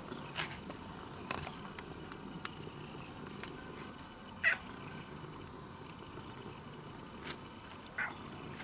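Domestic cat giving two short meows, one about halfway through and one near the end, with a few faint clicks between.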